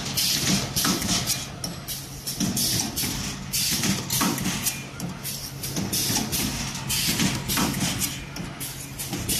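Automatic wire ring coiling and butt welding machine running: frequent short hisses and clacks from its pneumatic cylinders as the wire is fed, coiled, cut and welded, over a steady low hum.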